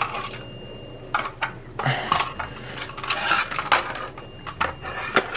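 Clicks, knocks and light clatter of hard plastic and metal fire alarm devices being handled and moved about, with scattered sharp taps and short rustling stretches.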